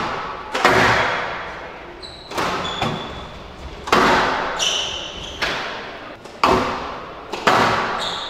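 Squash rally: the ball is struck hard by rackets and hits the court walls about nine times, each crack echoing in the enclosed court. A few short high squeaks of shoes on the court floor come between the hits.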